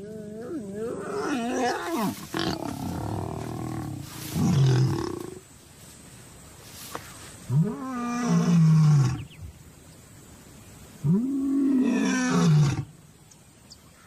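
Male lion roaring: three long, moaning roars a few seconds apart, each rising then falling in pitch, after some wavering growls at the start. The roaring proclaims his territory and status after taking over the pride.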